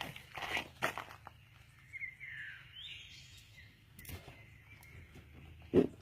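A few footsteps in the first second, then a bird chirping in short rising and falling whistles in the middle, and a sharp knock just before the end.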